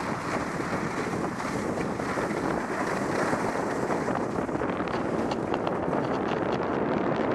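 Wind rushing over the camera microphone as a skier goes downhill, with the steady hiss of skis sliding on groomed snow.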